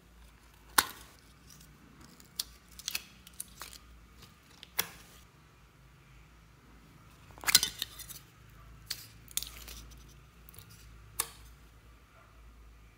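Scattered sharp clicks and taps of small hard plastic cases being handled, about a dozen in all, the loudest about a second in and a quick cluster just past the middle.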